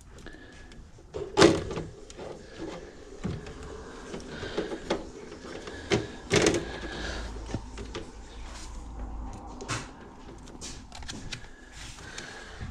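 Handling noise of hands placing multimeter test probes on a stairlift's opened control box: scattered light clicks and rattles, with two sharper knocks, about a second and a half in and about six seconds in.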